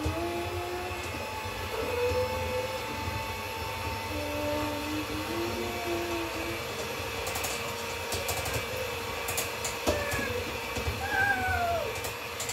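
Electric hand mixer running steadily as it beats thin kefir blini batter in a bowl. Over it come a small child's short, high vocal sounds, and a few light clicks past the middle.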